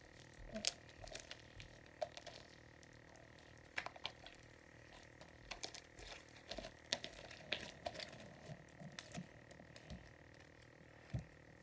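Sticky, under-activated slime being mixed and kneaded by hand, giving faint irregular wet clicks and squelches.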